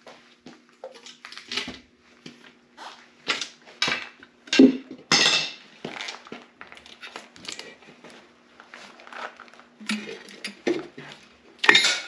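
Metal clinks and knocks from a wrench and the intake manifold as it is unbolted and lifted off a Ford 5.0 V8's cylinder heads. The knocks are irregular and come throughout, with the loudest one about a second before the end.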